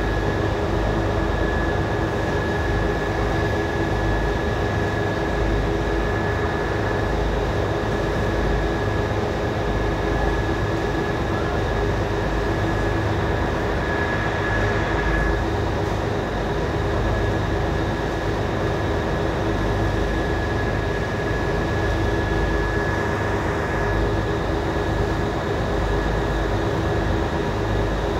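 Boat under way: its engine drones steadily, with a constant whine in it, over the rush of water and wind.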